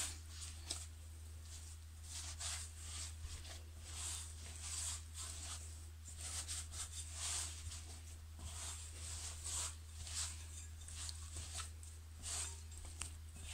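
Hands pressing and folding soft, shaggy yeast dough and loose flour in a glass mixing bowl: irregular soft squishing and rubbing sounds, about one or two a second, over a steady low hum.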